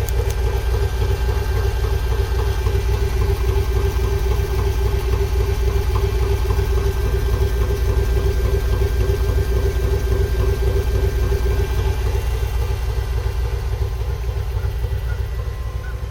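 Pickup truck engine idling steadily, a constant low rumble with a steady hum.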